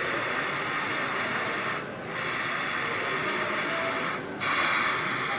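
A steady hiss that breaks off briefly twice, about two seconds in and again after four seconds, and comes back louder near the end. Faint background chatter sits beneath it.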